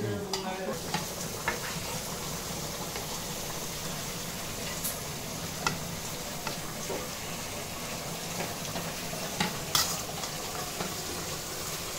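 A plastic spoon scraping and knocking as parboiled basmati rice is layered over chicken curry in a large aluminium pot for biryani, with a steady sizzle from the cooking pot underneath. Light scrapes are scattered throughout, with a few sharper knocks about halfway and near the end.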